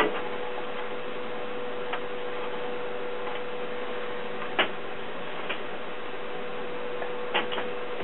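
A few light clicks and knocks of aluminium drink cans being handled and set down on a workbench, over a steady hiss and a faint constant hum.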